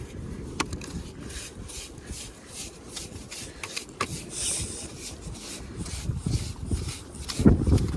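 Repeated rasping strokes, about two to three a second, of a hand scraper raking through tidal mud and sand for blood cockles.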